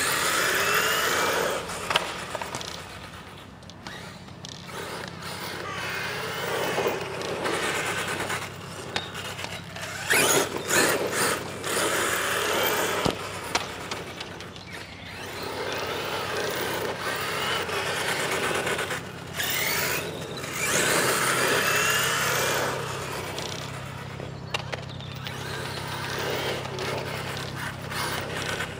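HPI Savage Flux RC monster truck driving on its brushless electric motor. The motor whine rises and falls with the throttle over the noise of the tyres on the ground, getting louder and fading again several times as the truck comes and goes.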